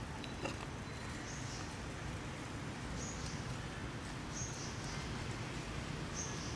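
Outdoor ambience: a steady background hiss with a faint, short, high chirp repeating about every second and a half, and a small click about half a second in.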